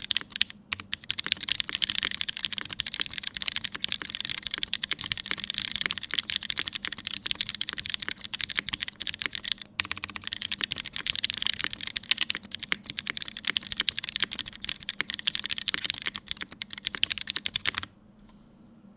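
Fast continuous typing on a mechanical keyboard with lubed and filmed Cherry MX Brown tactile switches in an aluminium plate, under GMK keycaps: a dense stream of key clacks with brief pauses, stopping about a second before the end.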